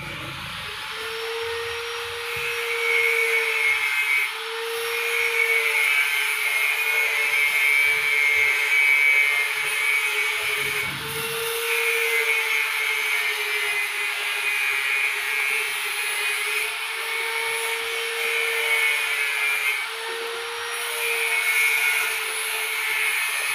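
Small coloured pellets poured from a cup into a sheet-metal chute, streaming and rattling down the metal as a steady hiss with a ringing tone. The stream breaks off briefly a few times, about 4, 11 and 20 seconds in.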